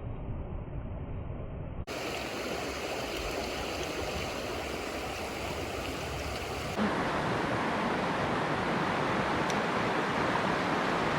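Mountain stream water rushing, a steady noise. About two seconds in it turns abruptly from muffled to clearer, and about seven seconds in it becomes louder.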